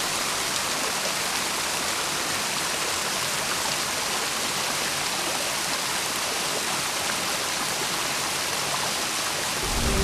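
Small waterfall: thin streams of water running down a rock face and splashing into a shallow pool, making a steady, even rush with a hissy edge.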